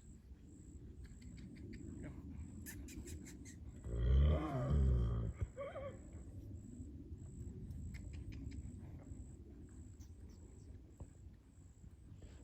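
A large animal's deep, low call, about a second and a half long, starting about four seconds in, followed by a short higher call about a second later. A few scattered clicks come before it.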